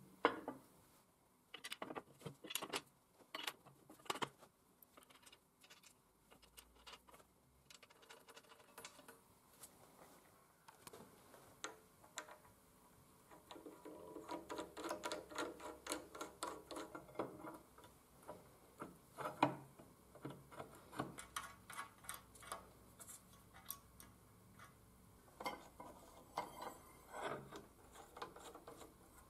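Steel parts of a homemade pipe rust-removal machine being assembled by hand: scattered clicks, knocks and light metal clatter as a clamp plate is set in place and a threaded knob is turned. A quick run of ticks comes about halfway through.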